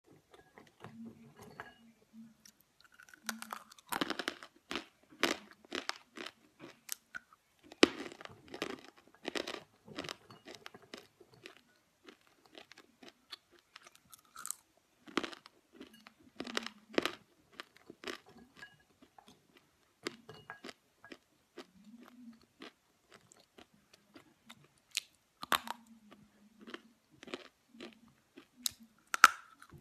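A person biting into and chewing dry chunks of edible Ural clay: sharp, crisp crunches in clusters, with quieter pauses and a few brief low hums between bites.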